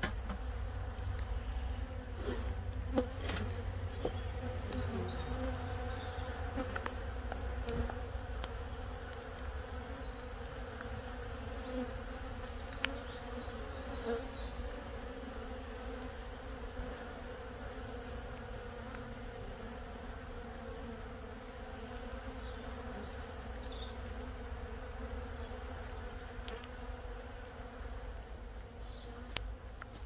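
Honeybees humming from an opened hive full of bees, a steady buzz with a low drone. A few sharp clicks come through over a low rumble.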